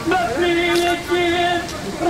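A man singing a slow melody in long held notes.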